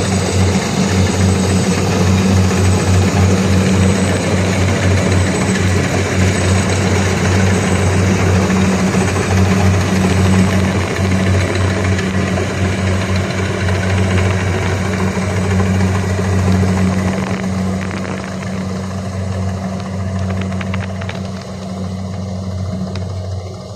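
Combine harvester's diesel engine and threshing machinery running steadily at a constant hum, growing fainter over the last few seconds.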